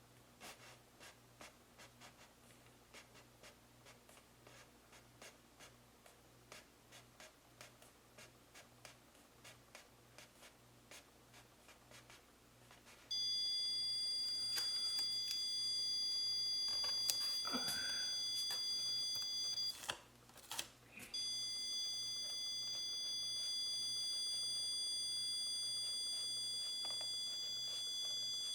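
Faint ticks and scrapes, then, about 13 seconds in, an electronic stud finder's loud, steady, high-pitched beep, typical of the tool detecting a nail or stud. The beep breaks off for about a second, resumes and cuts off near the end.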